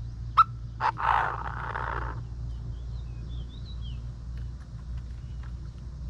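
Caged decoy Chinese francolin calling: two sharp clipped notes about half a second apart, then a harsh, raspy note lasting about a second.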